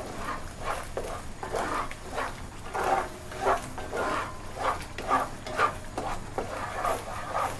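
A spatula scraping and stirring in a pan at about two strokes a second as Panang curry paste fries in coconut cream.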